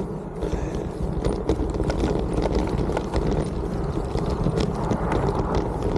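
On-One Free Ranger gravel bike riding over a rough dirt and gravel track, heard from a handlebar camera: tyres crunching and the bike rattling with many small, quick knocks over a steady low rush of wind noise.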